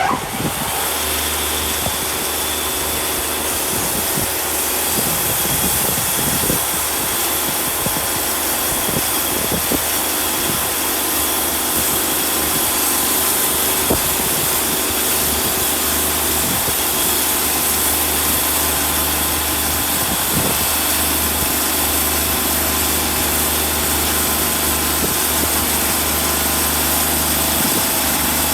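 Wood-Mizer portable band sawmill running steadily, its engine held at a constant speed while the band blade saws through a log.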